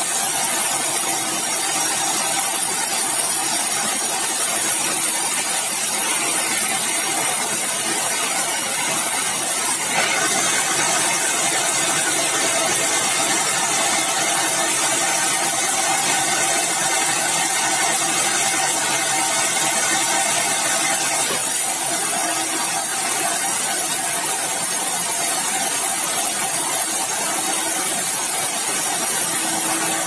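Sawmill band saw running and ripping keruing timber: a steady, loud machine noise with a hissing cut. From about ten seconds in until about twenty-one seconds the hiss grows brighter and harsher, then settles back.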